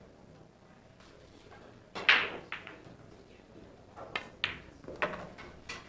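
Pool balls on a billiard table as a shot is played: a sharp click about four seconds in, then further clicks and knocks over about a second and a half as the balls meet and run off the cushions. About two seconds in, before the shot, there is a single louder sound that rings on briefly.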